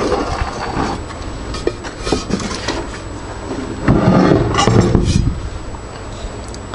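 Cast aluminium parts of a facade-lift gear motor being handled, giving scattered metallic clicks and knocks, with a louder stretch of knocking and rubbing about four seconds in.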